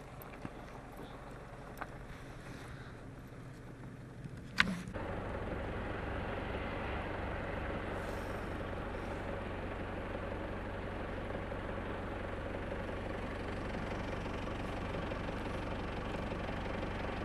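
A few seconds of quiet outdoor sound with light clicks, then, after a sharp click about five seconds in, an engine running steadily with a low hum.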